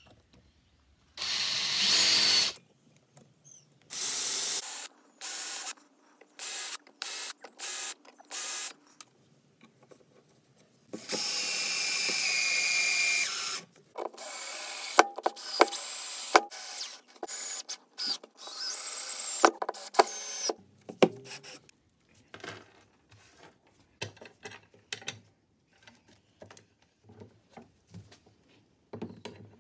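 Cordless drill-driver running in short bursts, driving screws through a steel hinge into wood, with one longer steady run of several seconds. After that run comes a string of sharp clicks and knocks.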